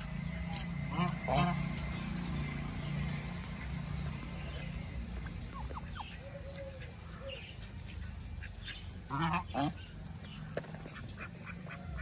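Domestic geese and ducks calling: a few honking calls about a second in and two louder ones around nine seconds in. A low steady hum runs under the first few seconds.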